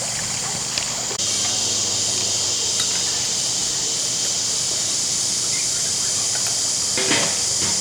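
Small concrete mixer running with sand inside: a steady motor hum under a loud, even hiss that grows louder about a second in.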